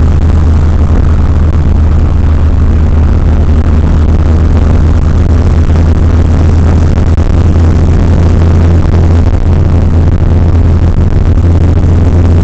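Chrysler Conquest TSi's turbocharged 2.6-litre four-cylinder running at a steady cruise. It makes a loud, even low drone, mixed with road noise, heard from inside the cabin.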